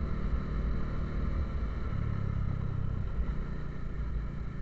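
Motorcycle engine running steadily while riding, its note shifting a little about two seconds in.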